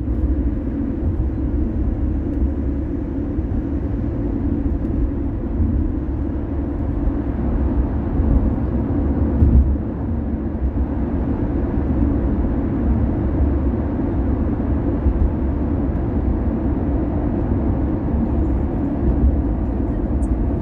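Car being driven, a steady low rumble of road and engine noise.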